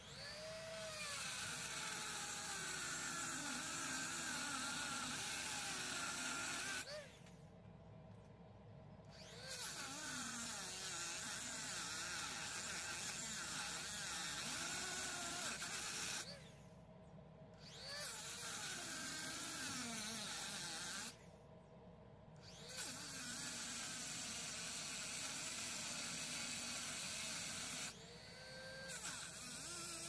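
Rotary tool (Dremel) spinning a reinforced cut-off disc and grinding into the metal plier jaw of a multitool: a high whine with a hiss, its pitch wavering as the disc is pushed into the cut. Four times the grinding drops away for a second or two as the disc comes off the metal.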